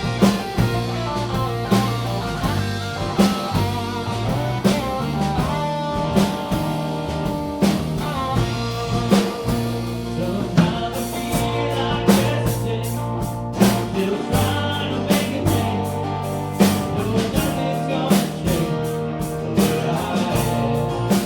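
Live band playing a country song: drum kit keeping a steady beat under bass and guitar.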